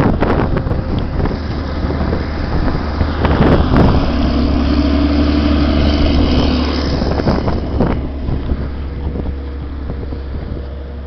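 Snowcat engine running as the machine pulls away, heavily buffeted by wind on the microphone; the engine hum is loudest for a few seconds in the middle, then fades.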